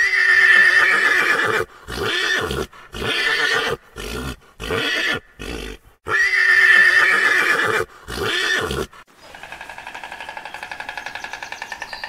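A horse neighing over and over: a long whinny at the start and another about six seconds in, with several shorter neighs between. About nine seconds in the neighing stops and a quieter, rapid, even pulsing sound takes over.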